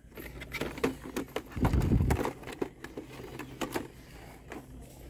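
Plastic blister packs of toy monster trucks clacking and rattling as they are handled and flipped through on a store display peg, with a heavier low thump about two seconds in.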